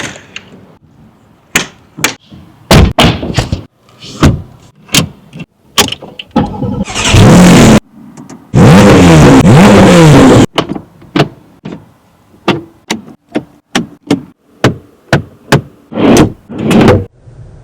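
A string of sharp clicks and clunks from the Porsche 718 Spyder RS's door and controls. Its 4.0-litre naturally aspirated flat-six fires up loud at about six and a half seconds and is blipped up and down in revs until it stops abruptly about ten and a half seconds in. More scattered clicks follow.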